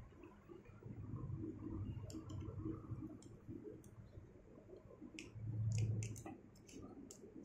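Sharp metal clicks and clinks of carabiners and rope-access hardware being handled and clipped on a rescuer's harness, a few at first and a rapid cluster between about five and seven seconds in. Under them runs a low rumble that swells loudest just before the cluster ends.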